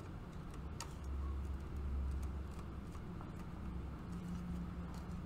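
Faint clicks and handling noise of a small screwdriver and hookup wire being worked into a PLC's screw terminals, with a low rumble from about one to two and a half seconds in.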